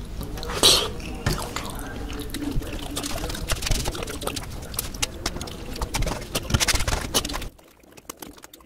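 Close-miked wet eating sounds: lip smacking, sucking and chewing as saucy fish is eaten off the fingers, with a loud slurp about a second in. The sounds stop abruptly near the end.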